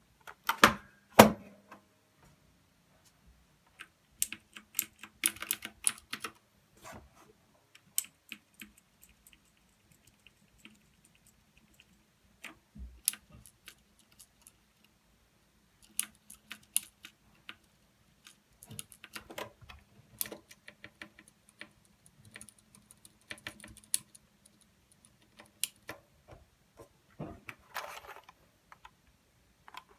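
Royal Kludge RK61 mechanical keyboard with clicky blue switches being typed on: runs of sharp key clicks in irregular bursts, with short pauses between runs. The loudest strokes come about a second in.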